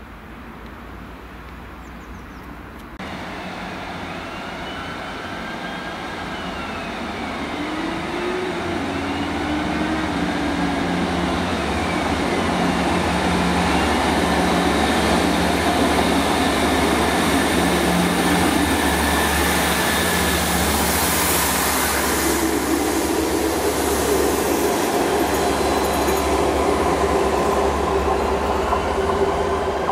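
Diesel multiple unit running along the platform with its underfloor diesel engines working, the steady engine drone and rail rumble growing louder over the first dozen seconds and then staying loud.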